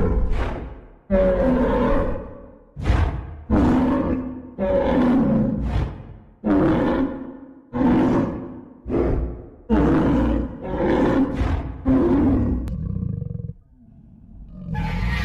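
A dinosaur roar sound effect: about ten deep, rough roars in a row, each starting suddenly and trailing off over a second or so. A quieter spell near the end is followed by another roar.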